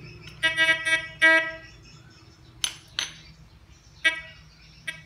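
Metal detector (Gold Bug Pro) giving short buzzy beep tones as metal comes near it, twice in the first second and a half and once more about four seconds in. Between them, a few sharp metallic clinks of a knife and a metal file being handled and set down on a tiled floor.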